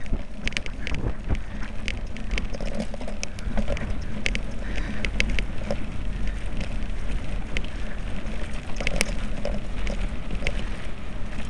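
Mountain bike riding fast down a dirt track: tyres rolling over loose earth and bumps, with many sharp clicks and rattles from the bike, and wind rumbling on the microphone.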